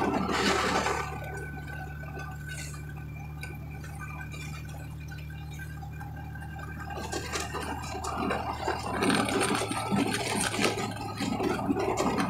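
Steady engine hum and road noise heard from inside a moving vehicle. A louder, uneven sound joins in about two-thirds of the way through.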